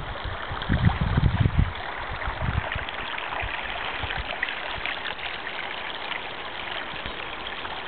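Water of a small spring-fed stream running steadily, with a few low thumps in the first couple of seconds.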